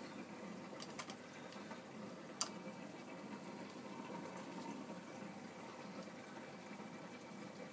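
Steady running water of a marine aquarium's circulation and filtration. Two sharp clicks break in, about one second and two and a half seconds in, the second louder.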